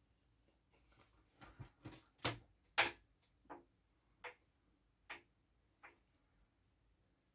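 Small repair tools clicking and tapping on the parts of an opened iPhone 6s: about ten short, irregular clicks, the loudest about three seconds in.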